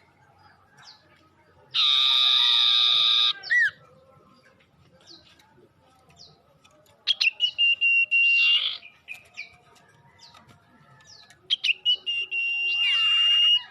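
Male sirtu bird calling: a harsh, buzzy call lasting about a second and a half, then two bouts that each open with a few sharp clicks and run into a long, steady, high whistle, the second whistle the longer. Short sliding chirps come between the bouts.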